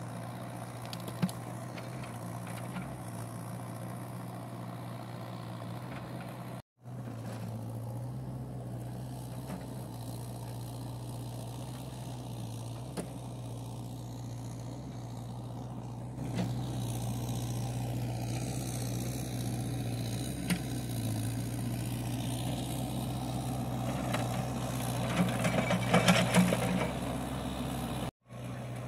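An engine running at a steady idle, with a few sharp knocks and clatter near the end.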